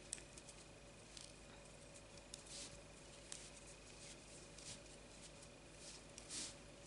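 Faint rustling of crocheted cord being slid along a metal spring-clasp bag frame, with a few light clicks and soft swishes of handling, over a low steady hum.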